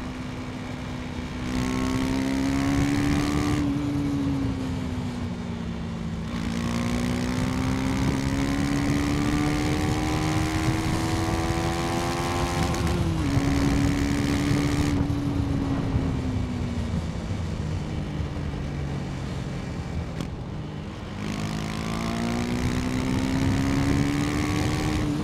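KTM 250 Duke's single-cylinder engine pulling the bike along, its revs rising and falling several times as the throttle is opened and rolled off, with one sudden drop in pitch a little past halfway.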